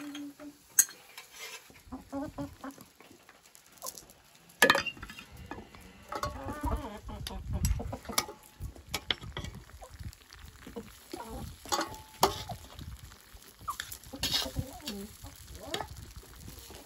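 Hens clucking close by while a metal spatula and spoon scrape and knock against a metal cooking pot as rice is stirred and scooped, with several sharp clinks.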